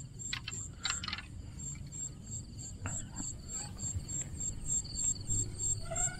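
Night insects, such as crickets, chirping in a steady, rapidly pulsing high trill. A few soft clicks come in the first three seconds.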